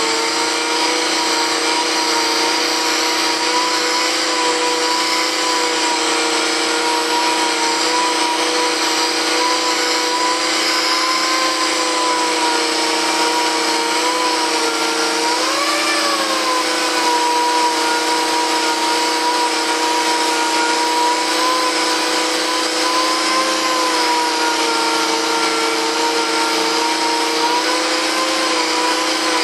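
Dual-action (DA) sander running steadily while sanding an edge of the model jet's fuselage. Its whine wavers slightly in pitch and rises briefly about halfway through, over a constant hiss.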